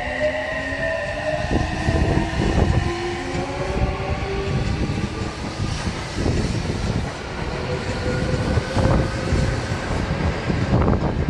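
Odakyu 3000 series electric train pulling away from a platform. Its inverter-driven traction motors whine in stepped tones that rise in pitch as it gathers speed, over a steady wheel rumble, with sharp clacks of the wheels crossing rail joints every couple of seconds as the cars pass.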